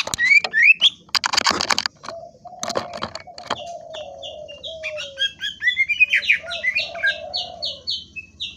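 Green leafbird (cucak ijo) singing a busy, varied song of quick chirps and rising whistled sweeps, with a harsh burst about a second in and lower slurred whistles repeating underneath. From about halfway it breaks into a fast run of repeated sharp notes.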